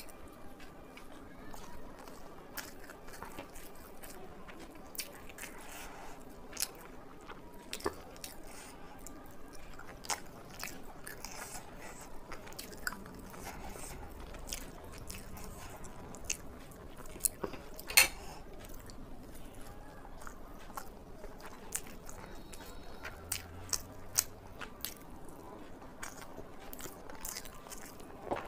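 Close-miked eating: steady chewing with scattered wet mouth clicks and small crunches, and one sharp louder click about two-thirds of the way through.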